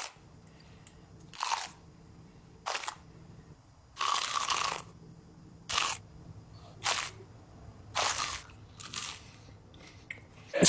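Crunchy bites and chewing into a giant Korean corn dog's fried batter: about seven separate crunches, spaced a second or so apart, one of the longest about four seconds in.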